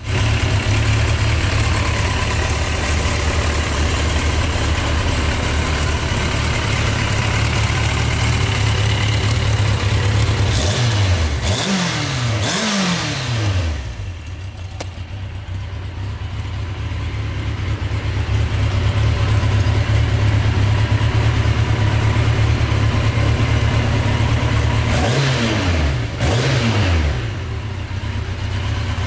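Yamaha Diversion 900's air-cooled inline-four engine idling steadily. The throttle is blipped twice about a third of the way in and twice more near the end, the revs rising and dropping back to idle each time.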